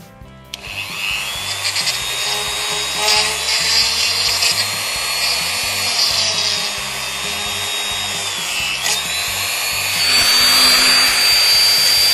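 Dremel rotary tool with a small drill bit starting up about half a second in and running at high speed with a high whine as it drills into the broken tap stem lodged in the tap body. The whine dips briefly about nine seconds in, then settles at a higher pitch and gets a little louder.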